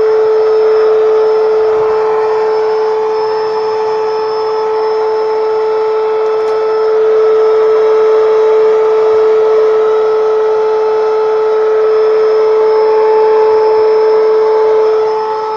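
A small power tool's motor running steadily, with a constant high whine over a continuous rushing noise.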